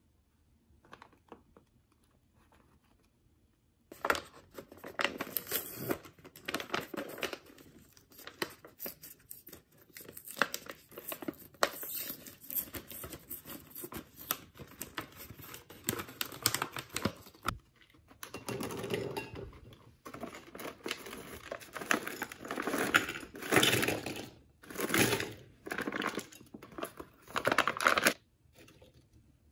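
Plastic snack pouch of cassava-leaf chips crinkling and rustling as it is handled and pulled open. The crinkling starts about four seconds in, breaks off briefly about halfway, then comes back louder and stops shortly before the end.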